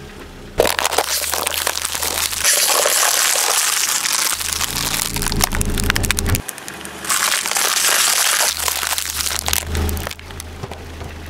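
Thin plastic cups crackling and crunching as a car tyre rolls over and flattens them, loudest in two long stretches, over a steady low rumble from the car.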